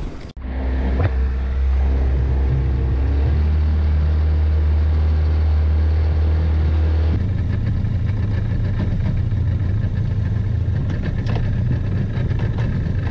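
Outboard motor of an inflatable boat running steadily underway, a constant low hum. About seven seconds in the sound changes abruptly to a rougher, noisier running.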